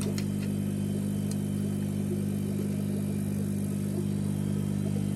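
Steady low electrical hum of a fish-room air pump, the kind that drives the sponge filters, running evenly without change.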